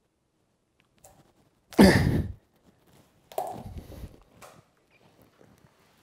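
A pumpkin being handled and cut with a kitchen knife: a loud dull thud about two seconds in, a second thud a little over a second later, then a few faint knocks.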